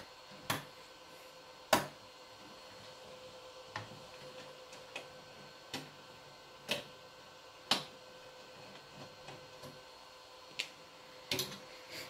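Scattered light clicks and taps, about a dozen at uneven intervals, from hands and tools working on the mining rig's parts during disassembly. A faint steady hum runs underneath.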